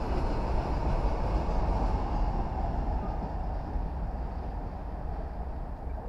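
Loaded BOXN freight wagons rolling past on the track, a steady rumble that slowly fades as the tail of the train moves away.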